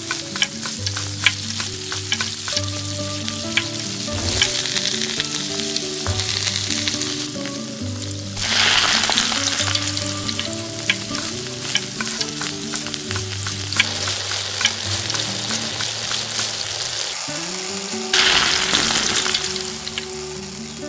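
Fish curry sizzling and bubbling in a tiny steel pot over a small wood fire, with light clicks of a small spatula stirring at the start. About eight seconds in, and again near the end, the sizzling suddenly surges louder, then eases off.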